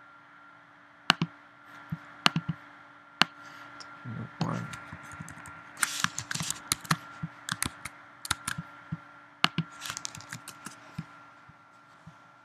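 Computer mouse clicks and keyboard keystrokes: a few single sharp clicks in the first few seconds, then quicker runs of key taps about six and ten seconds in, over a faint steady electrical hum.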